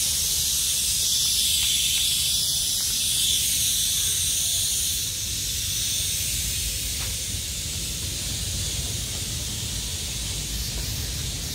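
A steady high-pitched hiss over a low rumble, easing slightly about halfway through.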